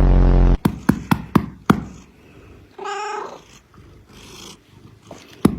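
A loud low rumble at the very start, then a few sharp clicks, and a domestic cat gives one short meow about three seconds in. A fast run of clicks starts near the end.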